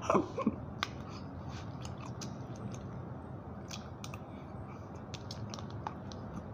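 A man chewing a mouthful of macaroni close to the microphone: a string of small, irregular mouth clicks and smacks over a steady low background hum.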